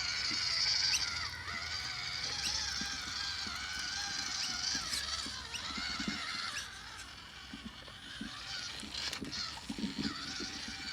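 WPL C-44 RC truck's small electric motor and gears whining, the pitch wavering up and down with the throttle, with scattered short knocks as it works through mud.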